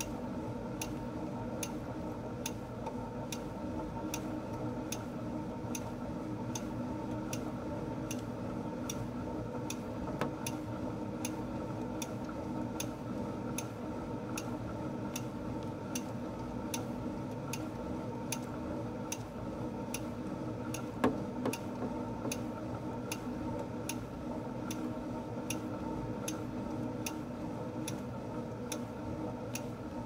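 Stationary exercise bike being pedalled at a steady pace: a continuous whir from the flywheel with a sharp tick repeating about twice a second, and one louder knock about two-thirds of the way through.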